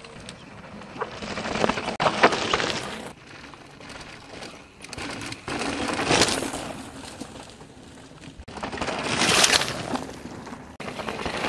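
Mountain-bike tyres skidding and crunching over loose rocky, dusty dirt as riders pass close by, in three loud swells of gravel noise.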